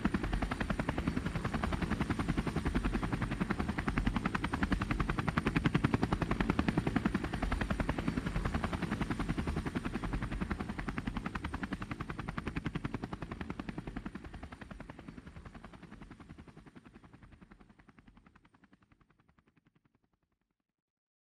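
Background music outro: a rapid, even fluttering pulse over a low bass, fading out steadily until it stops shortly before the next track begins.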